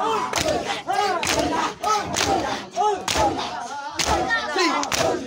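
A crowd of men doing matam, striking their chests with their hands in unison about once a second, with loud shouted chanting from many voices between the strikes.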